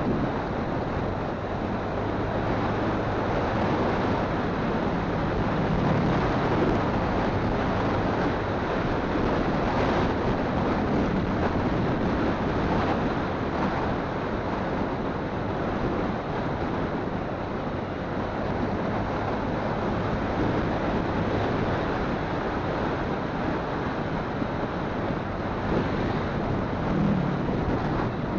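Wind rushing over a phone microphone on a moving motorcycle, with the engine's steady low hum underneath.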